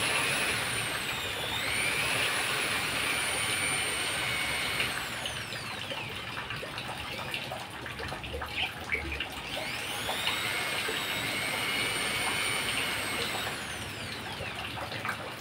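Corded electric hand drill running: its motor whine holds high with a brief dip in speed, winds down about six seconds in, and after a few clicks and knocks is run up again for about five seconds before winding down near the end.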